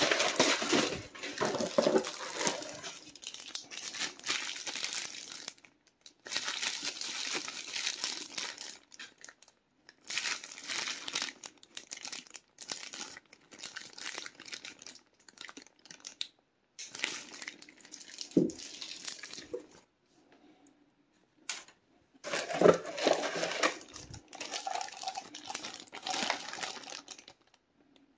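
Crumpled kraft packing paper and thin plastic wrap crinkling and rustling as packages are handled, in bursts with short quiet gaps. A couple of soft knocks come in the second half.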